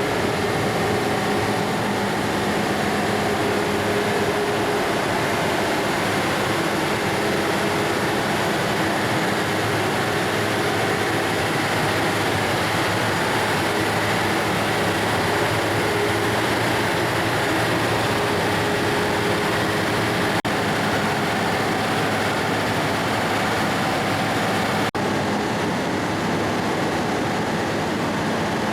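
A vehicle's engine running steadily with a constant hum and an even wash of mechanical noise, without rising or falling in pitch.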